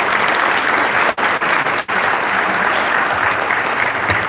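An audience applauding, a steady dense clapping that cuts out briefly twice in the first two seconds.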